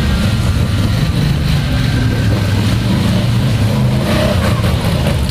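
Quad bike (ATV) engines running under throttle as the machines climb a steep bank out of a creek bed, one after another.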